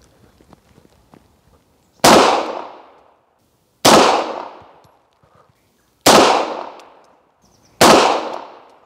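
Four single shots from a P-83 Wanad 9×18 mm Makarov pistol, about two seconds apart, each ringing out for about a second: slow, aimed fire in a practice series.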